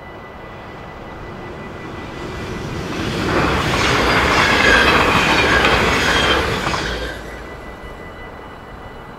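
A yellow-and-blue double-deck passenger train passes through a level crossing at speed. Its rush of wheel and air noise swells about two seconds in, stays loud for about three seconds, then fades. A steady high-pitched warning tone from the crossing signal sounds under it.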